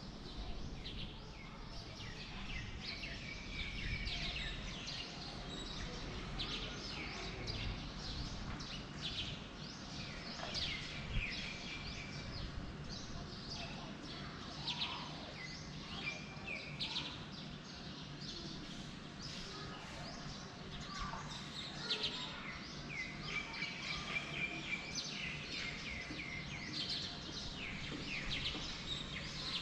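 Several birds chirping and singing over a low, steady background rumble, with many short sweeping calls throughout.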